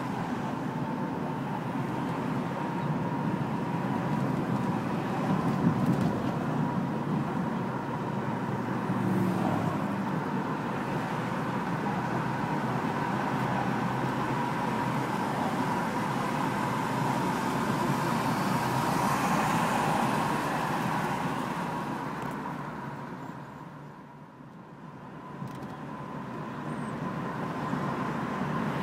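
Road and engine noise of a moving car heard from inside the cabin, a steady rush that drops away for a couple of seconds about twenty-four seconds in before building back up.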